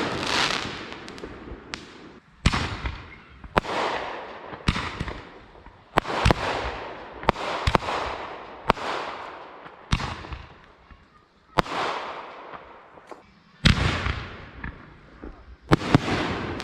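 Consumer fireworks going off in quick succession: a sharp bang every second or two, each followed by a fading crackle.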